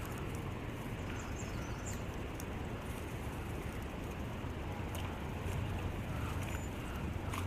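Steady rush of river current, with a low rumble of wind on the microphone.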